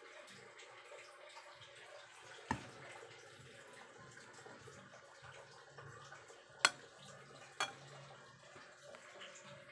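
A metal spoon clinking against a pot of cooked rice while rice is scooped out: three sharp clinks, one about two and a half seconds in and two a second apart later on, over a faint background.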